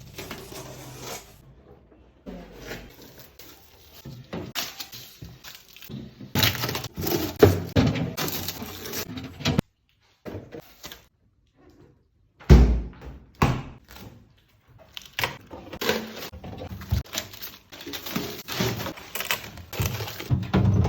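Irregular clinks, knocks and rustles of items being handled and set down in a four-door refrigerator, with a heavy thump about twelve seconds in.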